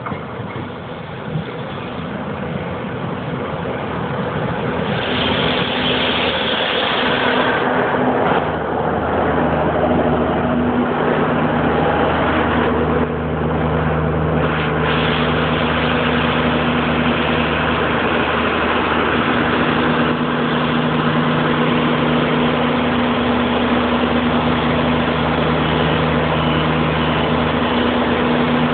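Diesel multiple-unit railcar drawing into a station and stopping alongside, growing louder as it comes in, with a brief high brake squeal as it halts about five to seven seconds in. Its underfloor diesel engines then idle with a steady hum while it stands at the platform.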